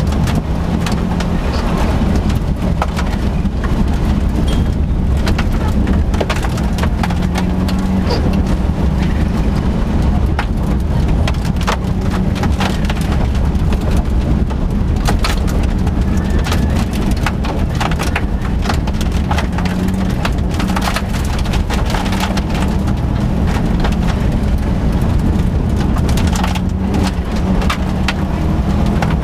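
Subaru Impreza GC8 rally car heard from inside the cabin at speed on a gravel stage. The flat-four engine runs hard under load while a constant patter of gravel stones hits the underbody and wheel arches.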